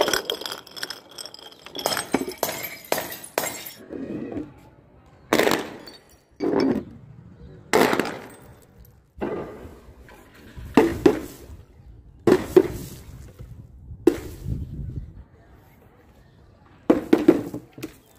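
Glass jars shattering and clinking for the first few seconds, then a series of sharp bursts a second or two apart as paint-filled balloons drop onto a board of nails and pop.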